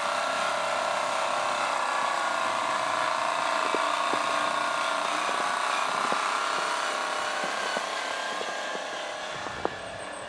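Electric drive motor and gearbox of a scale RC logging truck whining steadily while driving, the pitch drifting slightly up and down. Near the end the whine eases off and a few sharp clicks come in.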